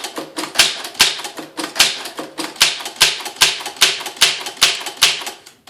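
Solenoid-driven typewriter typing by itself, its keys struck one after another in an even rhythm of about two to three strikes a second.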